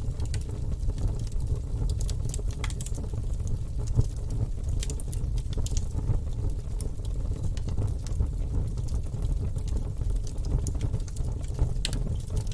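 Wood fire burning in a fireplace: a steady low rumble of flames with irregular sharp crackles and pops from the logs, one louder pop about four seconds in.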